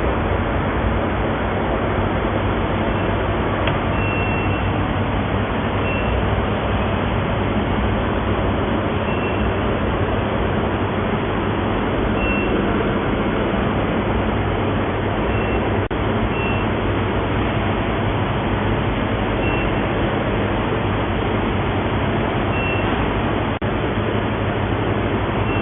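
Steady running noise of an induction gold melting furnace during a test melt, with faint short high tones every few seconds.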